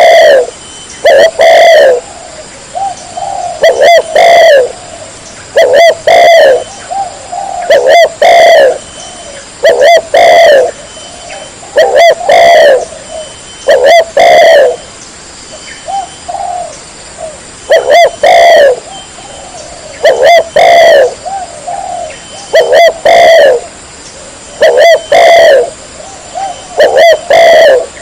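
Spotted dove cooing loud and close: phrases of low coos repeat about every two seconds, with softer notes in between.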